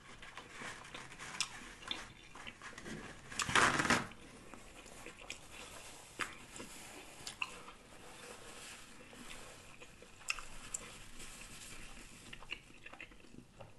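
Close-miked chewing of a burger slider with the mouth closed: soft wet mouth sounds and small smacking clicks. A brief louder noisy burst about three and a half seconds in.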